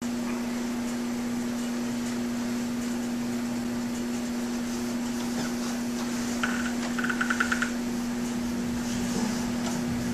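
Steady electrical hum with a faint hiss: the room tone of a living room. About six and a half seconds in, and again around seven seconds, comes a quick run of short, high chirping pulses.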